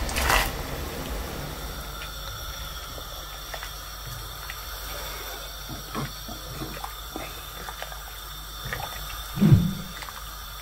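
Cut green beans tipped into a stainless steel pot of boiling water for blanching, a splash at the start, then the water bubbling steadily while a silicone spatula stirs the beans, with a few light taps against the pot. A brief low thump near the end.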